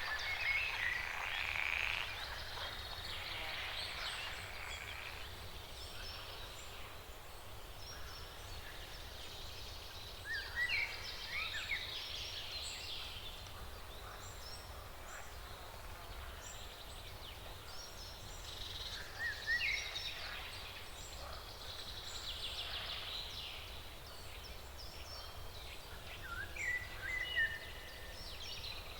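Forest birds singing and calling: scattered high chirps and short whistled phrases with quick pitch slides, a few louder bursts of song, over a steady low background rumble.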